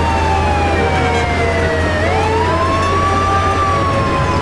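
Fire truck siren wailing over a low steady rumble. Its tone falls slowly, sweeps back up about two seconds in, then falls again.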